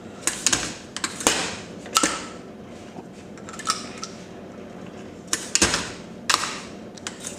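Shotgun shell reloading press being worked by hand: an irregular string of sharp metallic clicks and clacks from the press and the shells and parts being handled, with a louder cluster about five and a half seconds in.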